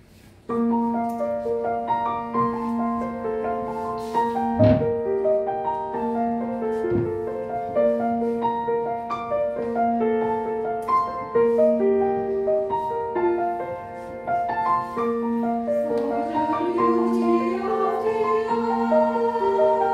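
Grand piano playing a flowing accompaniment, a low note repeated under moving higher notes, starting about half a second in. Near the end a choir begins to sing over the piano.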